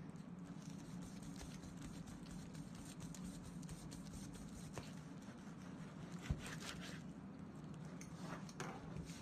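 Large knife cutting through a netted pork roast on a plastic cutting board: faint scraping and slicing strokes over a low steady hum, with a short knock about six seconds in.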